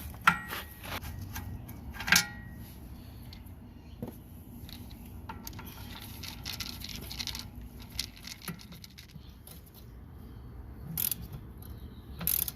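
Metal hand tools and loosened bolts clinking and scraping while a car's rear brake and hub are taken apart. There are scattered sharp clinks, the loudest just after the start and about two seconds in, and a stretch of scraping midway.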